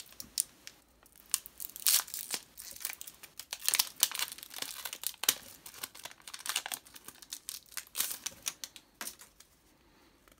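Foil Pokémon booster pack wrapper being torn open and crinkled by hand: irregular sharp crackles and tearing, thinning out near the end.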